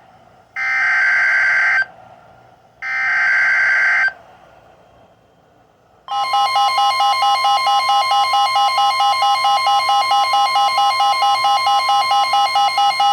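Emergency Alert System SAME header on NOAA Weather Radio: two bursts of digital data tones, each about a second long and a second apart. About six seconds in, a loud electronic attention tone begins, pulsing about four times a second, announcing the next severe weather warning.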